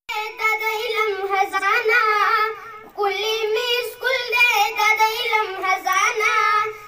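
A boy singing a school tarana solo into a handheld microphone, with no accompaniment. He sings two long phrases with a wavering, ornamented melody, with a short breath break between them about three seconds in.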